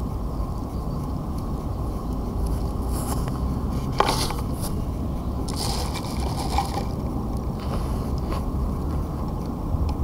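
Wind buffeting the microphone of a small quadcopter's onboard camera. A few scrapes and knocks come through, the sharpest about four seconds in and others around three and six seconds, as the drone is moved about on the grass.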